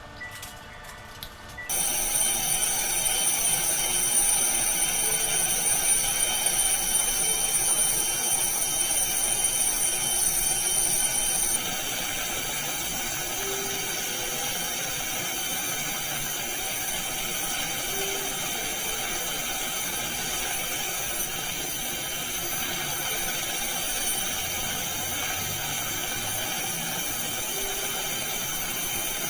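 Dental handpiece running with a steady high-pitched whine over a hiss. The highest part of the whine stops about ten seconds in, and a slightly quieter steady hiss carries on.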